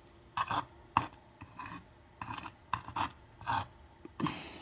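Small metal clicks and scrapes from working the top pins and springs out of a pin-tumbler lock's housing, about a dozen short ticks with a longer scrape about four seconds in.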